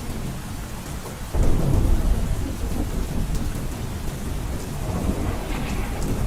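Heavy rain pattering on a roof with a low rumble of thunder. The rumble swells suddenly about a second and a half in and goes on, under the steady hiss of the rain.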